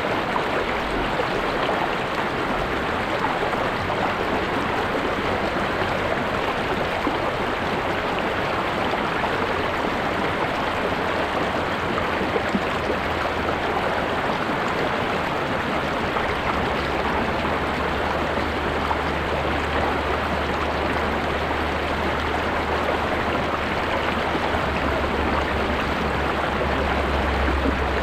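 River or stream water rushing and babbling steadily, with a low rumble underneath that grows stronger in the second half.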